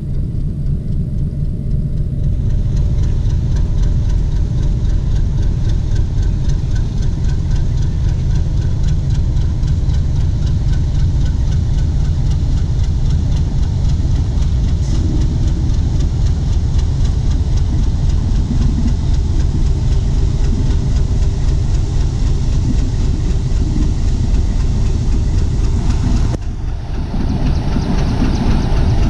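Metre-gauge ALCO diesel locomotive's engine running steadily as the single locomotive rolls slowly past. It grows louder over the first two seconds as it comes nearer.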